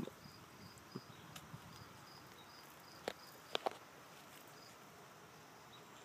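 Faint, high, evenly pulsing drone of a chorus of 17-year periodical cicadas, with a few soft clicks about a second in and around three and a half seconds in.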